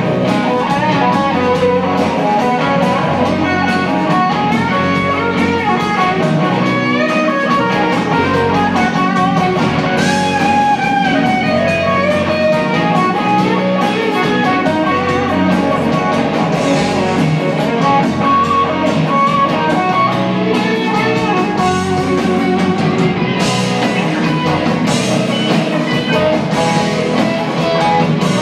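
Blues-rock band playing live: an electric guitar lead line over drums, bass and keyboard, with no singing.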